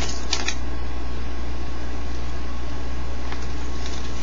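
A steady low hum with a faint hiss throughout, with brief crisp rustles of a paper manual being unfolded and handled just after the start and again about three seconds in.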